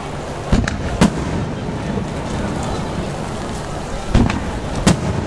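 Aerial firework shells bursting overhead: four booms, a pair about half a second apart near the start and another pair about four seconds in, over the steady hiss of falling rain.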